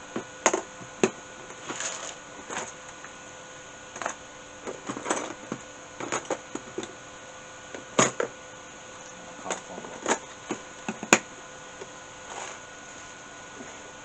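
Irregular clicks and knocks of hard parts being handled, from rummaging for a PC power button among computer parts, over a steady hum from the running PC.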